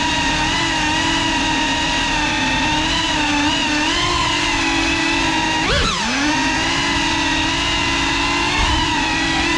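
Whine of a GEPRC Cinelog 35 cinewhoop's brushless motors and ducted propellers, recorded on the drone itself, its pitch wavering as the throttle changes. About six seconds in the pitch swoops sharply up, then down and back.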